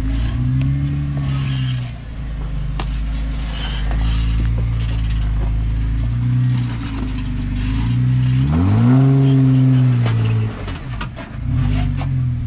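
Jeep Wrangler Rubicon's engine revving up and easing off in repeated bursts as it crawls up a rocky climb, the biggest rev rising and falling about eight and a half seconds in. Occasional short knocks and scrapes from the truck working over the rocks.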